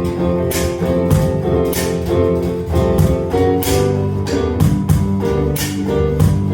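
Instrumental passage of a live pop medley: guitar playing over low bass notes with a steady beat, no singing.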